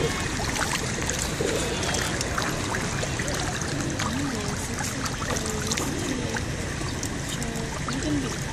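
Lake water splashing and lapping as a crowd of fish thrash at the surface feeding, with many small splashes.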